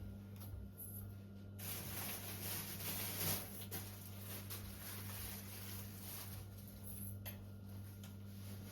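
Rustling and light handling noises for several seconds, starting about one and a half seconds in, over a steady low hum.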